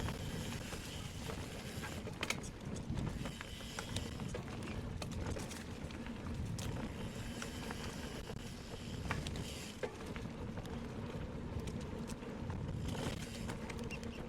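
Specialized Turbo Kenevo SL 2 e-mountain bike riding a forest trail: a steady rumble of tyres on the ground and wind, with scattered clicks and rattles from the bike.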